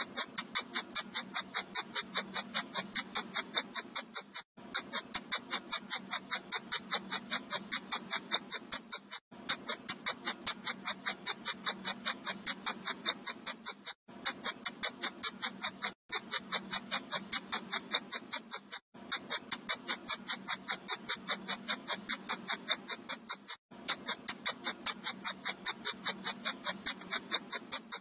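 Electronic mosquito-repellent sound: a fast, even train of high-pitched pulses, about eight a second, with a short break every few seconds where the loop starts over.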